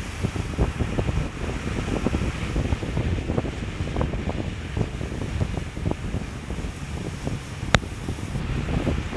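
Wind buffeting the microphone over a steady rush of floodwater, full of low rumble and small crackles. A single sharp click comes about three-quarters of the way through.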